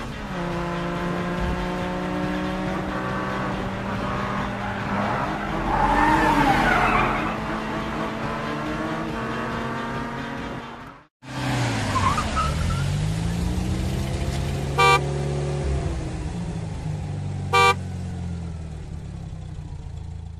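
Cartoon vehicle sound effects: engines humming and sliding up and down in pitch. The sound drops out briefly about halfway, and there are two short horn toots near the end.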